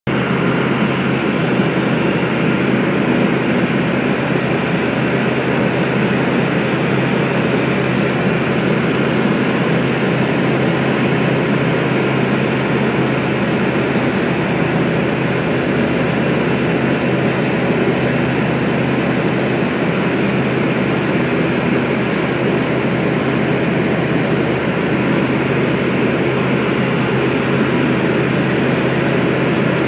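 Steady drone of a small propeller plane's engine and propeller in cruise, heard inside the cabin, with no change in pitch or level.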